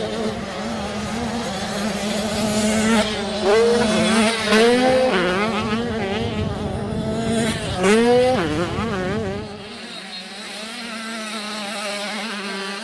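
Motocross bike engines revving hard, the pitch sweeping sharply upward several times as bikes accelerate, over the steady drone of other bikes. About ten seconds in, the sound gets quieter and loses its low end.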